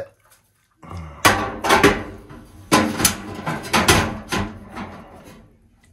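Sauna stones clacking against each other and against the steel Harvia Compact electric heater as they are lifted from a bucket and set by hand among its heating elements: a quick string of sharp knocks starting about a second in, dying away near the end.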